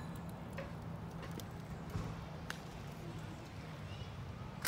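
Steady low rumble of traffic on a nearby highway, with a few faint clicks and one sharper click at the very end.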